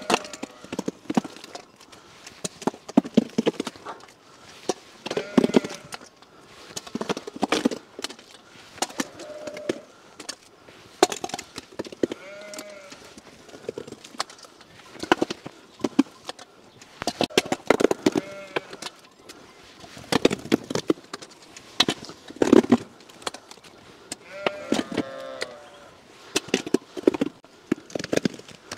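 A flat shovel scraping and slapping through wet, muddy ground in repeated irregular strokes, with sheep bleating a few times.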